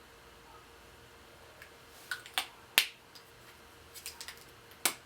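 Sharp plastic clicks from handling blush stick tubes, their caps being pulled off and snapped back on. The loudest click comes a little under three seconds in and another near the end, with a quick run of lighter clicks between them.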